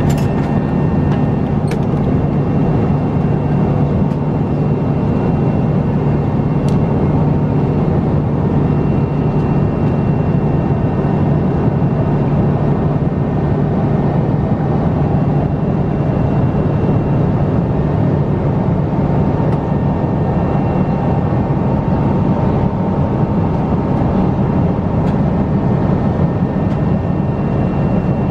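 Steady cabin drone of a Boeing 777 airliner in flight: engine and airflow noise, strongest in the low range, with a faint steady hum above it. A few faint clicks come near the start.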